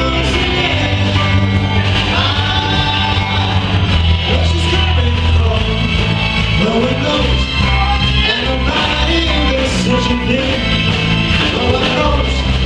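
Live rock band playing, with a steady bass, drums and a wavering lead melody line.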